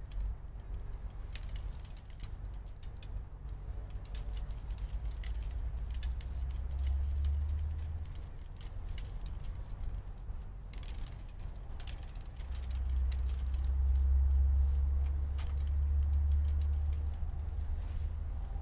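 Wind buffeting the microphone: a low rumble that swells twice, the second swell longer. Scattered light clicks and rattles sound over it.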